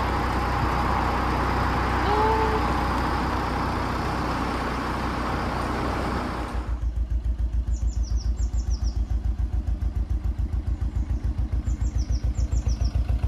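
Narrowboat diesel engine running steadily under the boat's noise. About six seconds in, the sound changes abruptly to a slow, regular chugging of several beats a second. Birds chirp high above it twice in the second half.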